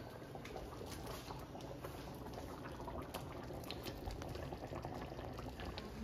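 Creamy Alfredo sauce with chicken and shrimp simmering in a steel skillet, a faint steady bubbling with many small pops.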